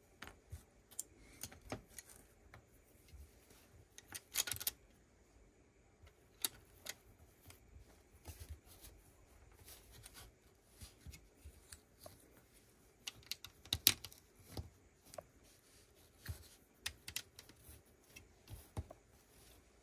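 Plastic Lego bricks being handled and pressed together by hand: scattered light clicks and taps. There is a short burst of rattling about four seconds in and a sharp click near fourteen seconds.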